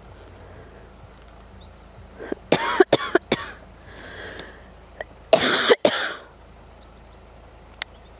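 A person's harsh, cough-like vocal sounds in two bursts, a few seconds apart.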